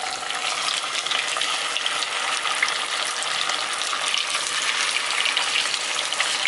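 Yogurt-and-spice-marinated chicken leg pieces sizzling steadily in hot ghee in a pan, with a dense crackle throughout.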